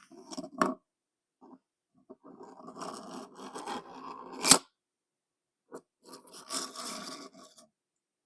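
Fidget toy being worked by hand: scratchy, crinkly scraping in two stretches, with one sharp click about four and a half seconds in.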